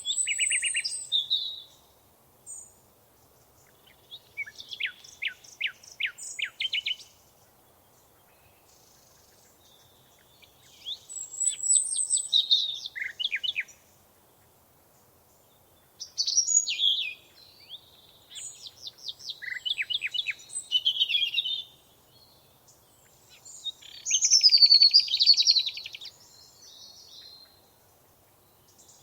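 Songbirds singing in short phrases of quick chirps and trills, about five phrases with quiet gaps of one to three seconds between them.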